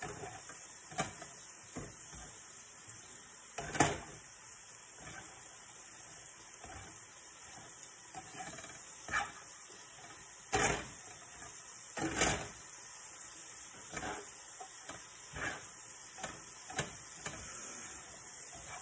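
Kale frying in oil and pork chop drippings in a pan while it is stirred: a steady sizzling hiss with irregular knocks and scrapes of the utensil against the pan, the loudest about four seconds in.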